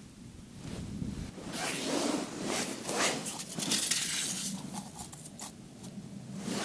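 Close rustling and scuffing of clothing and handling noise on the camera, a run of short rasping strokes in the middle few seconds.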